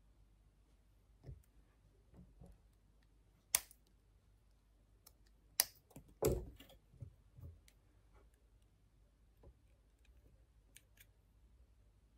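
Scattered small clicks and taps from hands handling a loop of thin 0.5 mm twisted jewellery wire and the tools beside it. There is a sharp click about three and a half seconds in, and the loudest click and knock come around six seconds in.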